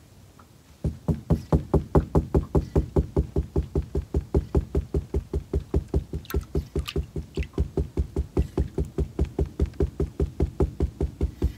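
Steady, even knocking at about five knocks a second, beginning about a second in and carrying on without a break.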